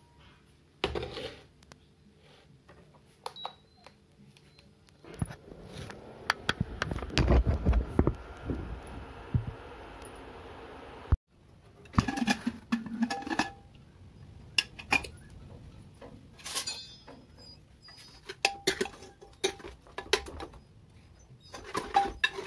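Kitchen handling sounds: a spell of steady rushing noise with knocks that cuts off abruptly, then a run of sharp metal clinks, knocks and scrapes from an aluminium pressure cooker and a steel ladle stirring the food inside it.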